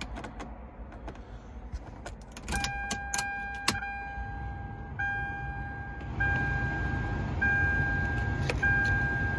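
Ignition key clicking as it is turned in a 2000 Toyota 4Runner, followed by the dash warning chime: one long tone lasting about three seconds, then three shorter chimes about a second apart. A low hum comes up about six seconds in.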